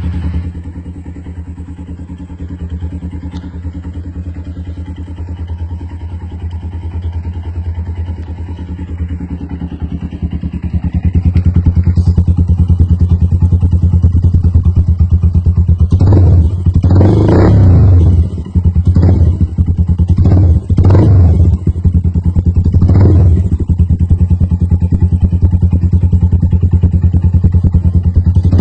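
Rusi SS Nova 150 motorcycle engine running through an aftermarket Akrapovic-style muffler. It idles steadily, settles at a louder, higher idle about 11 seconds in, then is revved in a series of short throttle blips from about 16 seconds on. The exhaust is very loud.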